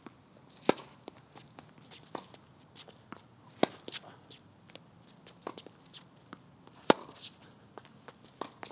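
Tennis rally on a hard court: three loud racket strikes on the ball about three seconds apart, with fainter hits and bounces between them and shoes scuffing on the court.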